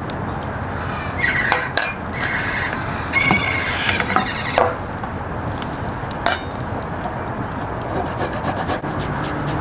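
Scraping and rubbing against a wooden surface, with a few sharp clicks and knocks spread irregularly through it.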